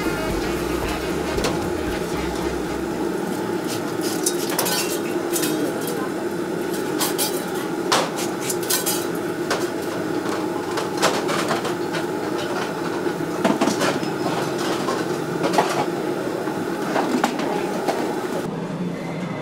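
Crockery and cutlery clinking and knocking in a busy café, with many sharp clinks scattered through over a steady background din.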